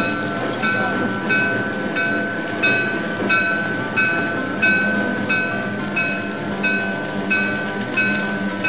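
HO-scale model diesel locomotive with a sound system, its bell ringing evenly about one and a half times a second over the rumble of the motor and wheels on the track.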